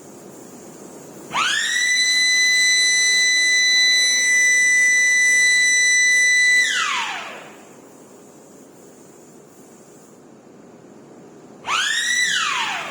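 Motor-driven warning siren on the furnace, winding up quickly to a steady high whine, holding for about five seconds, then winding down in pitch over a second or so. Near the end it starts again with a shorter rise and fall. It sounds while the furnace runs a tilt step.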